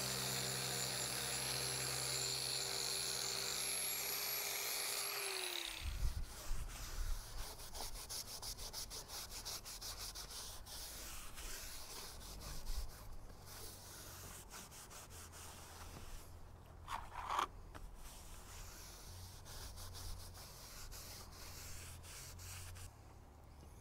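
An angle grinder with a sanding pad runs steadily, then is switched off and spins down about five seconds in. After that a cloth rubs and wipes over the sanded fibreglass deck, with a short squeak near the middle.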